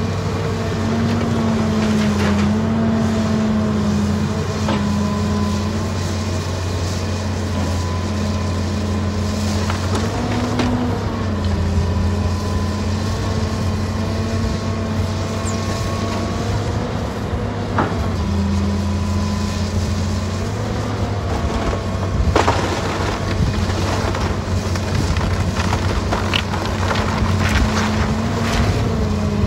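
John Deere 270C LC excavator's diesel engine running steadily under hydraulic load, its pitch dipping and rising as the arm works, while the bucket tears into an old wooden barn: timbers crack and boards clatter down several times, loudest about 22 seconds in.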